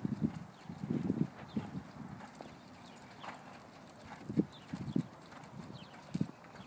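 Hoofbeats of an American Paint Horse mare moving on the ground: a quick run of dull thuds in the first second or so, then scattered single thuds.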